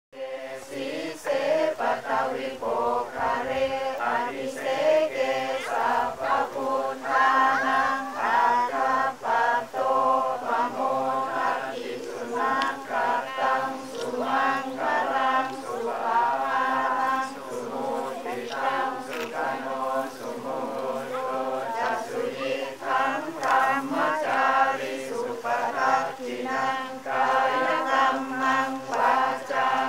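Group of Buddhist monks and lay people chanting together in unison, many voices blending into one continuous chant with brief pauses for breath.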